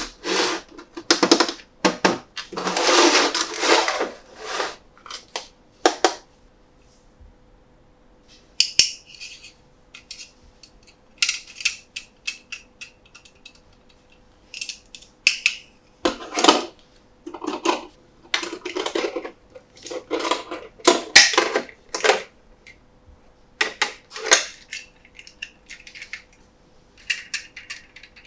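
Close-up handling of a boxed plastic toy truck and its packaging: irregular rustling and crinkling bursts mixed with sharp plastic clicks and taps, separated by short pauses. A faint steady hum sits underneath.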